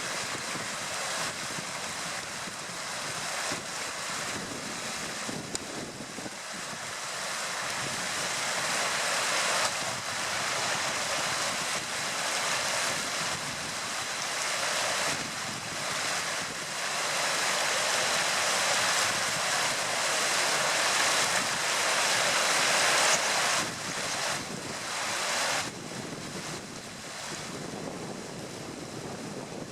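Steady rushing outdoor noise without distinct calls, growing louder through the middle and dropping off suddenly about 25 seconds in, with a faint steady high tone underneath.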